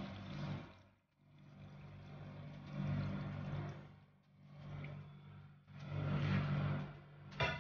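Chicken broth poured from a pot into a steel pan of chicken pieces, splashing in several swelling surges over a steady low hum. A sharp knock near the end.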